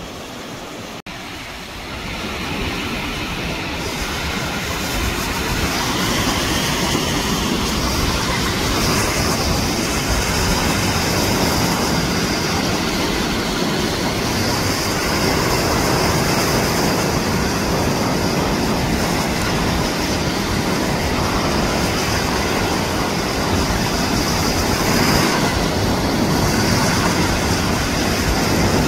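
Wind buffeting the microphone over surf washing on a sandy beach: a loud, steady rush with no tone or rhythm, swelling about two seconds in.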